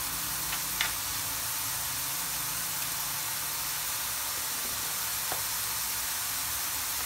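Chopped onion sizzling steadily in olive oil in a frying pan, with a couple of faint clicks of a metal spoon against the pan.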